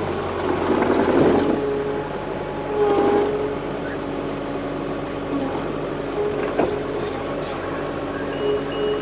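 Heavy construction machine running steadily, with a louder surge about a second in; near the end a reversing alarm starts beeping.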